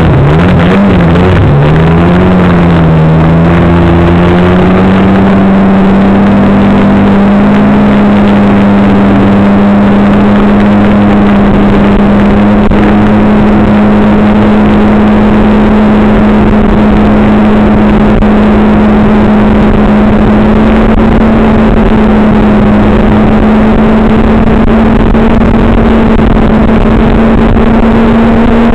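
A vehicle's engine running under way. Its pitch wavers for the first few seconds, then settles into a steady drone that creeps slowly higher. A constant rumble of rushing noise runs underneath.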